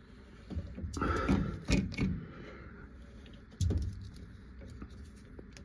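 Large pliers working the plastic drain pump filter cap of a Whirlpool Duet front-loading washer loose, with a run of clicks and scrapes in the first couple of seconds and one heavier knock a bit past halfway.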